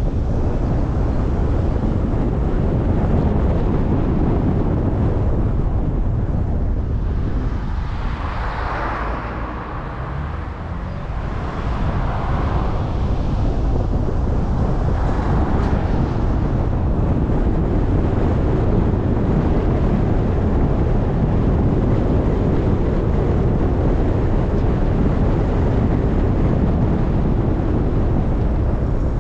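Steady low rumble of vehicle and wind noise, dipping briefly about ten seconds in.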